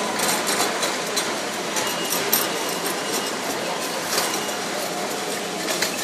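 Supermarket hall background noise: a steady din with frequent small clinks and rattles, and a couple of faint short beeps.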